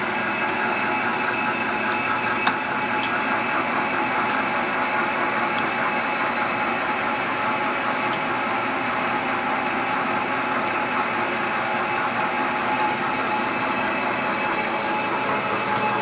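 Vectrax 1440EVS geared-head engine lathe running with the spindle turning and the carriage power feed engaged: a steady mechanical whine from the gear train. One sharp click about two and a half seconds in.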